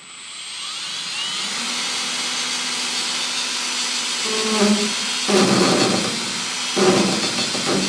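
Makita DHP480Z cordless drill spinning up and running steadily at speed. From about four seconds in, a harsh rattling grind comes and goes in bursts about every second and a half: the bad chuck noise of a barely used three-month-old drill.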